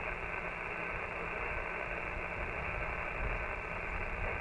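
Icom IC-7300 HF transceiver's speaker giving out steady 20-meter band static on single sideband, a hiss cut off sharply above about 3 kHz by the receive filter, with a low rumble underneath. No station in it can be copied: the band is shifting.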